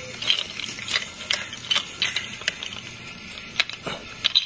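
Light, sharp clicks and ticks at an uneven pace, roughly two or three a second, over a faint background hiss.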